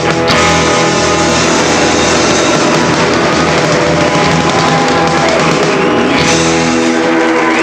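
Rock band playing live: electric guitar, bass guitar and drums, loud and dense.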